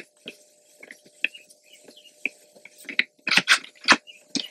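Small metal clicks and scrapes of a thread tap and its T-handle being worked in a bike's steerer tube, sparse at first, then a cluster of louder knocks about three seconds in.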